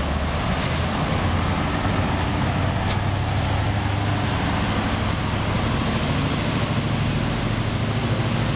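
Bangkok canal taxi's engine running steadily as the boat speeds away from the jetty, with the rush of its churning wake.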